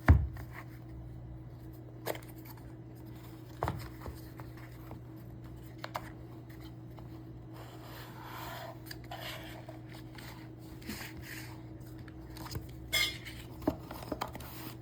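Handling noises from unboxing a charger: scattered clicks, taps and knocks of packaging and a plastic charger being moved, the loudest a knock right at the start, and a short rustle about eight seconds in. A steady low hum runs underneath.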